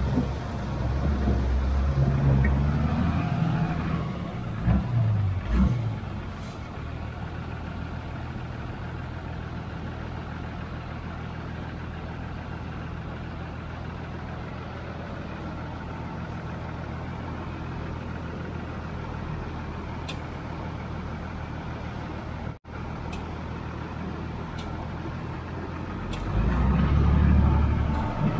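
Tata S-model 4x4 truck's diesel engine running steadily as it drives through floodwater, louder for the first few seconds and again near the end.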